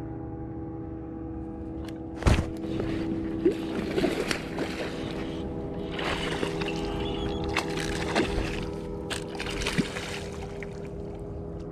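Irregular splashes and sloshing water start about two seconds in, from a hooked smallmouth bass thrashing at the surface beside a kayak. A steady background music bed runs underneath.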